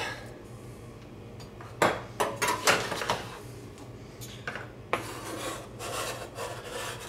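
Chef's knife blade scraping minced garlic across a plastic cutting board, with a few sharp taps and knocks of the blade and board between.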